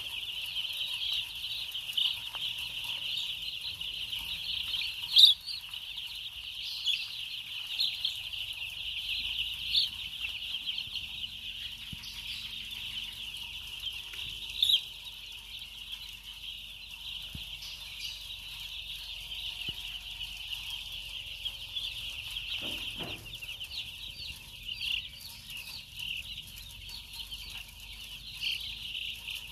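A large flock of young broiler chicks peeping constantly, a dense high chirping with no break. Two sharp clicks stand out, about five seconds in and again about fifteen seconds in.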